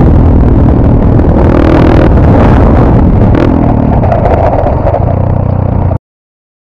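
Yamaha XTZ 125 trail motorcycle's single-cylinder four-stroke engine running under way, its note shifting with the throttle, with heavy wind noise on the helmet-camera microphone. The sound cuts off abruptly about six seconds in.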